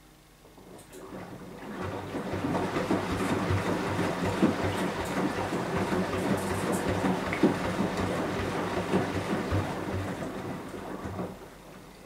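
Beko WMY 71483 LMB2 front-loading washing machine with a ProSmart Inverter motor, turning its drum to tumble a wet load: a steady motor hum under the noise of water and wet laundry churning. It builds up over the first couple of seconds and dies away near the end as the drum stops.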